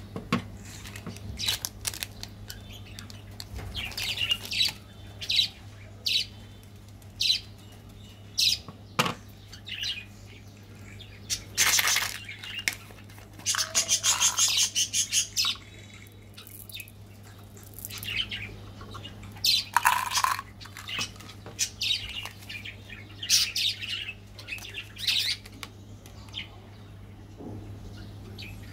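Plastic sweet wrappers crinkling and rustling in the hands in short bursts as the packets are opened. About halfway through comes a quick run of clicks as the cap of a small plastic candy bottle is twisted. A low steady hum runs underneath.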